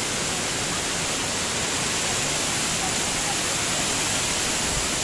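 Waterfall water rushing steadily through a concrete channel, a constant even rush with no breaks.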